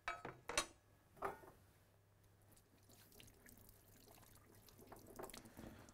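A few light knocks in the first second or so, then water from a kitchen tap running faintly as hands are rinsed under it.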